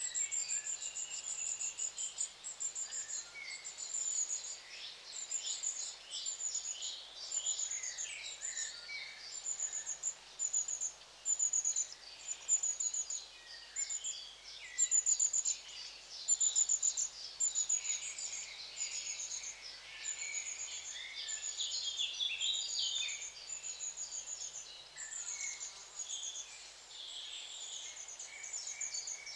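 A flock of long-tailed tits calling: very high, thin short notes repeated about once a second over a busy run of twittering calls.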